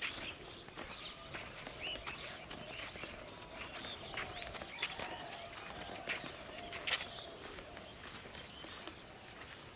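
Steady, high-pitched drone of insects in the countryside, with scattered faint bird chirps and one sharp click about seven seconds in.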